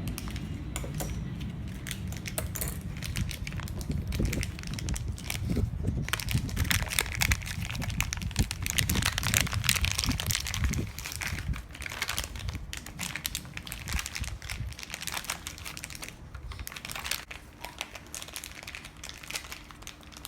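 A lidded plastic container holding the mixing slime glue and activator being shaken by hand, with dense crinkling and clicking of the plastic and low rumbling that eases off after about fifteen seconds.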